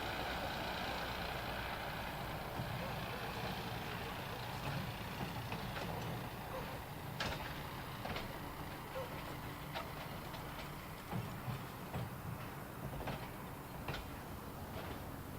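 Train rolling past with a steady rumble that slowly eases, and scattered sharp clicks and clanks from about five seconds in.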